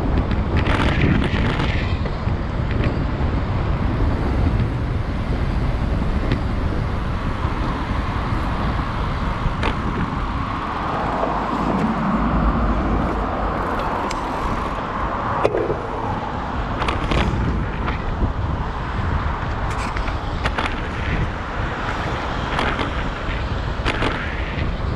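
Wind rumbling on the microphone of a moving bicycle, over city road traffic; a vehicle swells past about halfway through.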